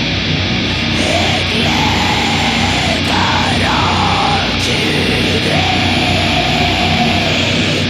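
Old-school black metal recording with dense distorted guitars and drums, and harsh shrieked vocals coming in about a second in and again in the second half.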